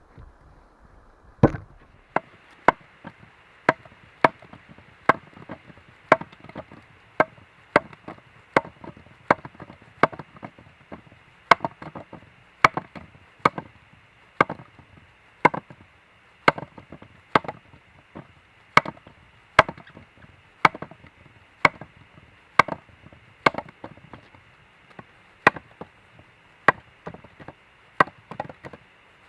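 Wood being chopped with a steady run of sharp blade strikes, about two a second.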